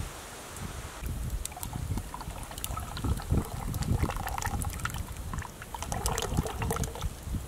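Tomato passata being poured into a cast-iron Dutch oven of minced meat, an uneven pouring and splashing that starts about a second in.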